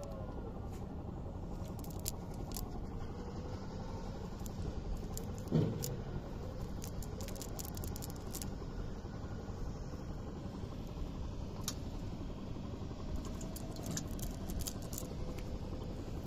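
Steady low rumble with scattered faint clicks and rustles of a wet cast net being picked through by hand, and one brief louder knock about five and a half seconds in.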